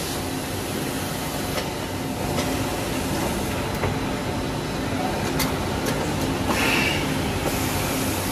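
Extrusion blow moulding machine running: a steady mechanical hum with a few short clicks and two brief spells of hiss in the second half, ending in a sharp knock.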